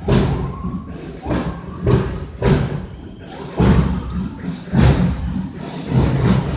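Bass drums of a marching drum band beating, a heavy thump roughly every half second to a second.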